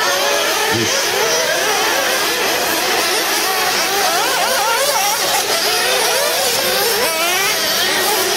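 Several 1/8-scale radio-controlled off-road buggies racing around a dirt track. Their motors make a high whine that rises and falls in pitch as the cars accelerate and slow for the turns, several pitches overlapping.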